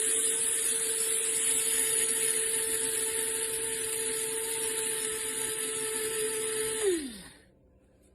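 DR MILLS DM-7441W electric coffee and spice grinder running, grinding flaxseed: a steady motor whine with the seeds whirring against the blades. About seven seconds in it is switched off and the pitch falls as the motor spins down.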